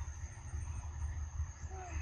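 Steady high-pitched insect drone over a low rumble, with one short, faint falling squeak near the end.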